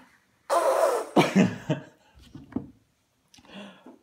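Human vocal sounds: a breathy, noisy blast falling in pitch, lasting under a second, then several short pitched bursts in quick succession and a few softer ones later.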